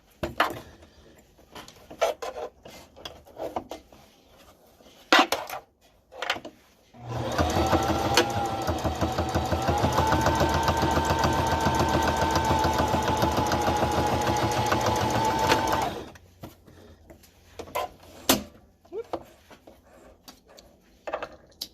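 Single-needle domestic sewing machine stitching for about nine seconds, a rapid even run of stitches over a motor whine that speeds up slightly near the start. Before and after it, scattered clicks and knocks.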